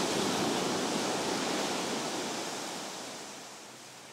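Sea washing onto a pebble beach: a rushing hiss that swells around the start, then slowly fades over the next few seconds.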